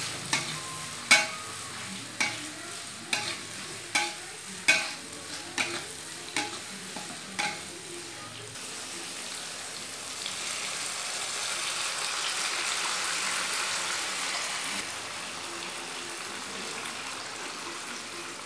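A metal spatula clanks against a wok about a dozen times while chopped shallots, garlic and chillies fry in hot oil. From about ten seconds in, a louder sizzle rises as canned sardines and their sauce go into the hot wok, then it eases off.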